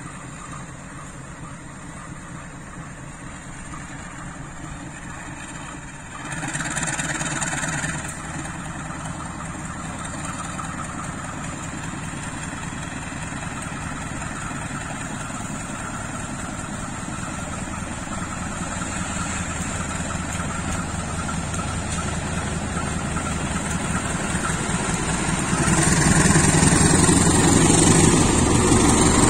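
CC 203 diesel-electric locomotive's diesel engine running as it pulls its train slowly out of the station, growing steadily louder as it approaches. A brief louder burst of noise comes about six seconds in, and the engine gets louder again near the end as the locomotive draws alongside.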